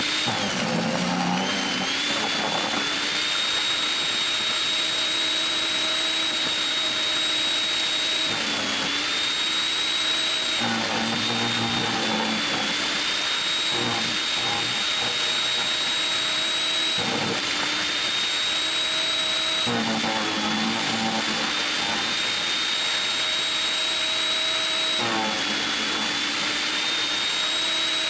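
Portland electric wood chipper running with a steady high motor whine that sags in pitch several times as branches are fed in and chewed up.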